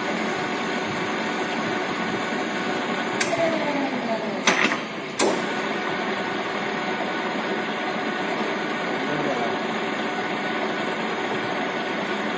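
Victor centre lathe running, a steady mechanical hum from its motor and gearing. Sharp clicks and a clunk come about three to five seconds in, with a falling whine around them.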